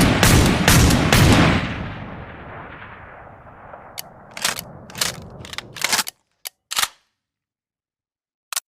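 Sound effect of a pair of 1858 revolvers firing: several shots in quick succession in the first second and a half, echoing away. A string of sharp clicks and lighter shots follows, then silence and one faint click near the end.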